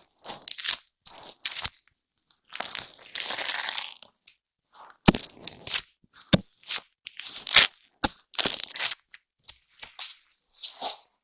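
Foam microphone cover brushed and squeezed right against the microphone: irregular crunchy, scratchy rustles, some brief and sharp, some drawn out for about a second, with silent gaps between.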